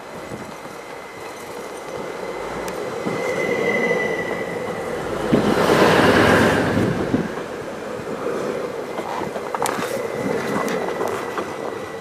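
Stadler FLIRT passenger train approaching and passing close by, its running noise swelling to a peak about six seconds in and then fading. A thin, steady high whine runs throughout, and a few sharp clicks come near the end.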